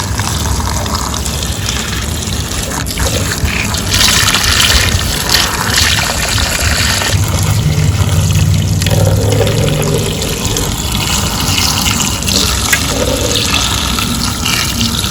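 Water running and splashing steadily onto die-cast toy vehicles as they are washed, a little stronger from about four seconds in.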